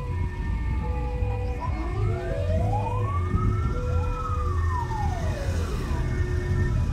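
Several emergency-vehicle sirens wailing, their pitch sweeping up and down in long slow arcs and overlapping, with short repeated steady tones among them. A heavy low rumble runs underneath.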